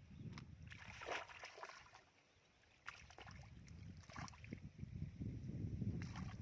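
Irregular splashing and sloshing in shallow muddy water, with a low rumble of wind on the microphone.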